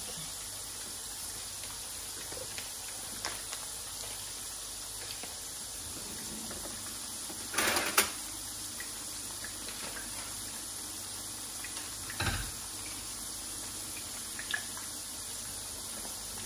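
Kitchen handling noises over a steady hiss: a short clatter about eight seconds in, the loudest sound, then a single knock about four seconds later and a small click near the end.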